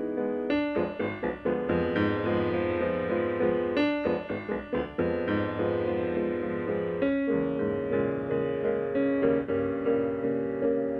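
Piano music: chords and melody notes struck in a steady rhythm.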